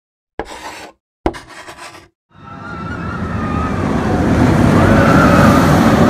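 Intro sound effect: two short sharp hits about a second apart, then a rushing vehicle sound with a wavering whistle-like tone, swelling louder over three seconds as an animated roller coaster car arrives.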